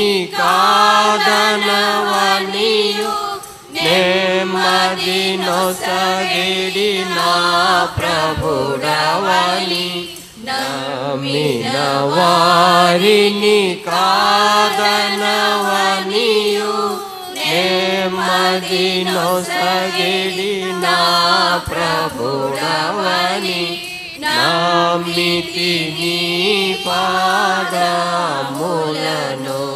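A group of women singing a hymn together into microphones, in long phrases with brief breaks between.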